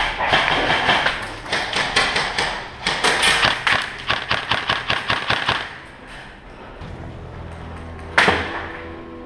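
Airsoft gunfire: rapid runs of sharp cracks echoing in a bare concrete room for about six seconds, then quieter, with background music holding a steady tone and one more sharp crack near the end.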